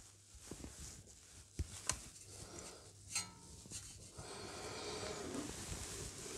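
Faint handling noises of a new ABS wheel-speed sensor being worked by hand into its bore in the front hub knuckle: a few light clicks and knocks. In the second half these give way to a steady, faint breathy rustle.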